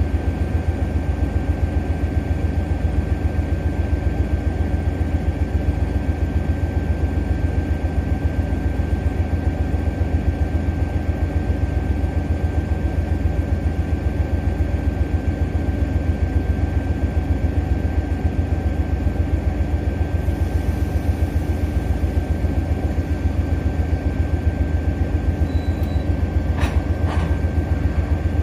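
Diesel freight locomotive engine idling steadily with a low, pulsing rumble and a thin steady whine over it. A few faint clicks come near the end.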